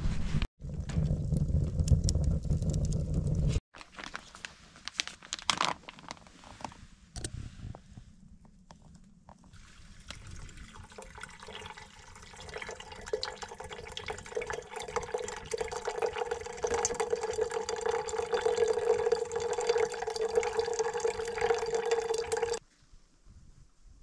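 First, loud rubbing and rustling of hands and a puppy on a sleeping bag close to the microphone, which stops abruptly. Then, after a few scattered clicks, liquid pours in a steady trickle from a foil meal pouch into an enamel mug, with a steady ringing tone, and cuts off suddenly near the end.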